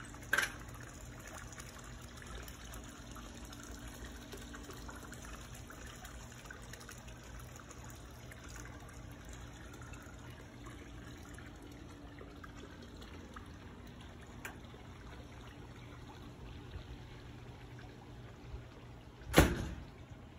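Steady faint trickle of running water over a low hum. A short click comes about half a second in, and a loud knock near the end.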